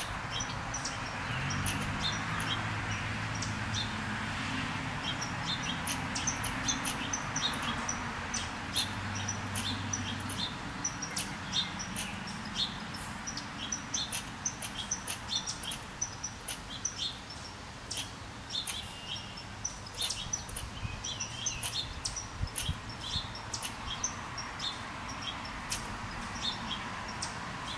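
American red squirrel calling in agitation: a long run of short, sharp, high chips, several a second at times. It is an alarm and territorial call aimed at a second squirrel close by.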